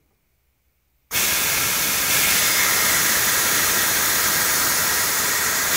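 High-pressure air hissing out of a scuba tank fill valve's bleed screw, starting suddenly about a second in and holding steady: the compressor's fill hose being vented of its pressure.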